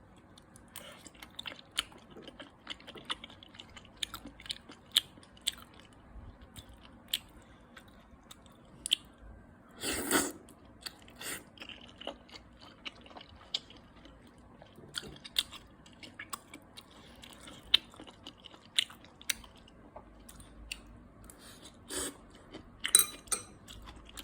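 Close-miked eating sounds: food being chewed and bitten, with many short wet mouth clicks. About ten seconds in there is a louder, brief rush of noise.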